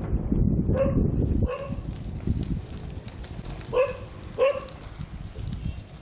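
A dog barking four times in short single barks, the last two close together near the middle. A low rumbling noise sits under the first two barks and stops abruptly about a second and a half in.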